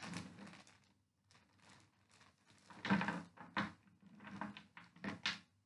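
Clear plastic zip-top bag rustling and crinkling as a hand rummages inside it among small plastic figures, with a few sharper crackles.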